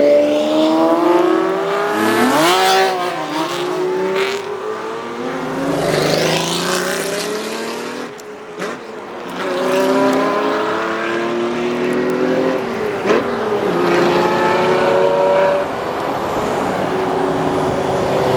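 Lamborghini and Ferrari supercars accelerating away one after another, their engines revving and climbing in pitch as each car pulls off and passes. One short, sharp rev comes about three seconds in, and a single crack comes about two-thirds of the way through.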